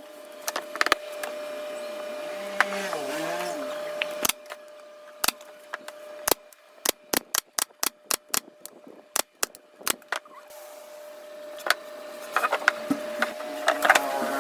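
A long series of sharp clicks or taps, in quick, uneven runs, over a steady tone.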